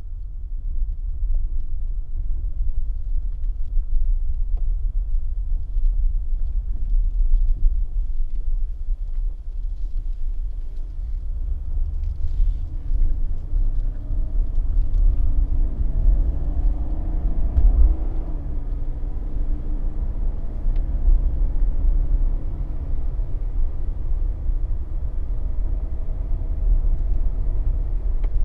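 Cabin noise of a Mercedes-Benz W124 300E-24 on the move: a steady low road and drivetrain rumble. About halfway through, the engine's note rises as the car accelerates, then eases off.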